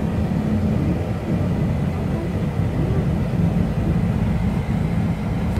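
Steady low rumble of road noise inside a moving car's cabin.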